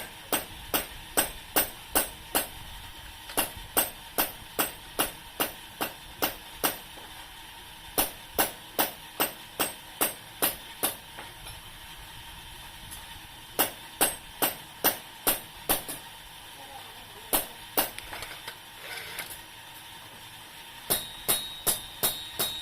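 Hammer blows on metal, struck in runs of evenly spaced taps about two to three a second, with short pauses between the runs.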